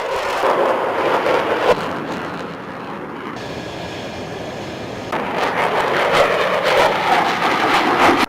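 Fighter jet engines running loud, a steady rush of jet noise from aircraft taking off. The sound shifts abruptly about three seconds in, swells again about five seconds in, and cuts off sharply at the end.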